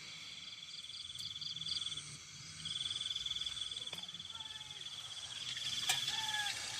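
An insect trilling in a steady high buzz. It breaks off for about half a second around two seconds in, then carries on, with a couple of sharp clicks later.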